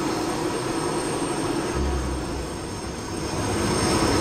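Jet engines of F/A-18 Super Hornet-type aircraft running on deck: a steady loud rush with a thin high whine, easing a little past halfway and swelling again near the end.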